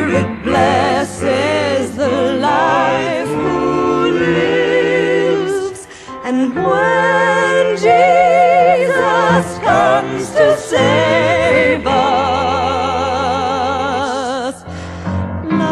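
Studio recording of a gospel song: several voices singing in close harmony, high soprano lines with wide vibrato over a low bass part and steady accompaniment, pausing briefly between phrases about six seconds in and again near the end.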